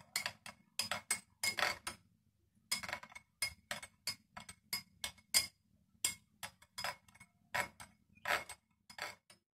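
A spoon stirring tea in a cup, clinking against its sides in repeated irregular taps, about two a second.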